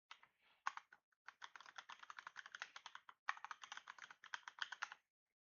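Typing on a computer keyboard: two quick runs of keystrokes with a short break just after three seconds in, stopping about half a second before the end.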